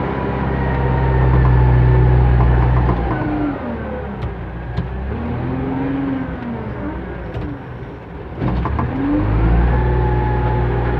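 JCB 3CX backhoe loader's diesel engine heard from the cab, working under load. Its revs fall off about three seconds in, waver up and down, then pick back up about a second before the end as the front bucket pushes into the dirt.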